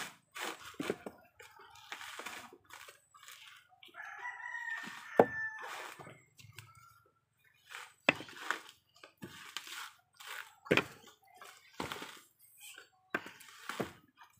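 A rooster crows once, a call of about two seconds starting some four seconds in. Around it come repeated sharp knocks of coconuts being handled and dropped onto a pile; the loudest knock falls during the crow.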